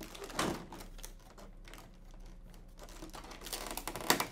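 Plastic packaging and tape rustling and crackling in scattered clicks as a taped-up figure is worked free of its wrapping, with a cluster of sharper crackles near the end.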